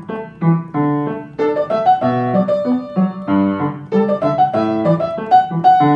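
Background music: a piano playing a quick melody of short, separate notes.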